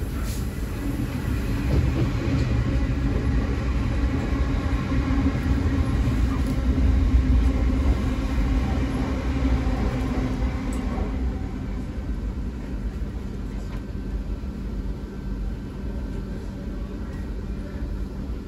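Low, steady train rumble heard from inside a Class 450 electric multiple-unit carriage standing at a station platform, with a faint steady hum over it. It is louder for the first ten seconds or so, then eases off.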